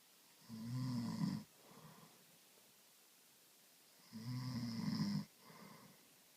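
A sleeping person snoring loudly: two snores about three and a half seconds apart, each followed by a softer breath.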